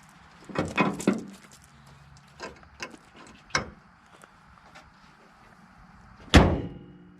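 Hood of a 2005 Nissan Sentra closed with a single loud slam about six seconds in, the sheet metal ringing briefly as the newly replaced hood latch locks. A few softer knocks come before it.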